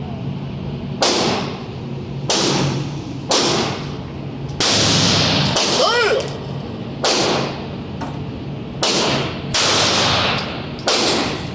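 A string of about eight single gunshots, one every second or so at an uneven pace, each followed by a ringing tail.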